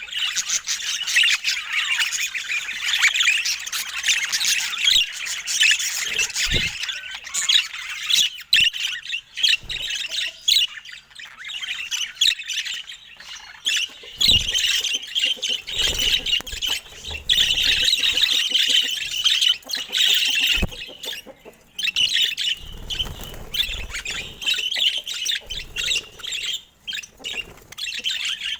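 Budgerigars chattering and warbling in a dense, continuous stream of rapid squawks and chirps. A few brief low thumps come through now and then.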